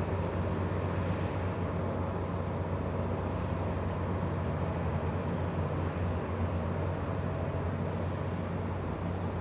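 Tugboat diesel engine running steadily, a low, even drone.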